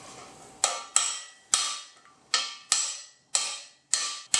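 Hammer blows driving a freeze plug into a BMW S52 engine block: about eight sharp metallic strikes, roughly two a second at uneven spacing, each ringing and fading.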